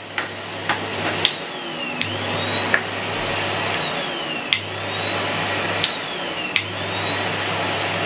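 Numatic Hetty HET160 bagged cylinder vacuum cleaner switched on, its motor spinning up over the first second and then running with a steady rushing sound. A high whine in it sags in pitch and climbs back several times, with a few sharp clicks along the way.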